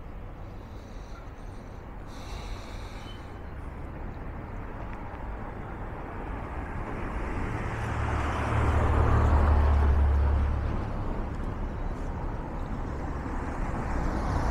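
Street traffic noise, with a motor vehicle's engine rumble growing louder, passing close by about eight to eleven seconds in, then fading.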